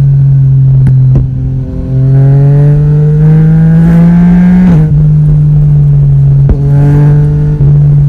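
Yamaha Tracer 900 GT's three-cylinder engine and exhaust pulling hard under throttle at highway speed, freshly retuned on a Woolich dyno. The engine note climbs steadily in pitch, drops sharply at an upshift near five seconds, then holds with two brief dips, over wind rush on the microphone.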